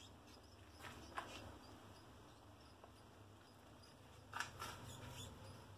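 Faint rustling and scratching of pet laboratory rats moving about on the tiled floor and cloth, with a few brief sounds about a second in and a short cluster of them past the four-second mark, over a low steady hum.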